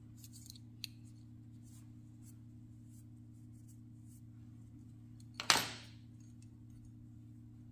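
Small soldering accessories (a flux brush, tweezers and a metal spudger) being handled: a few faint clicks and taps, and one short, louder scrape-like noise about five and a half seconds in, over a steady low hum.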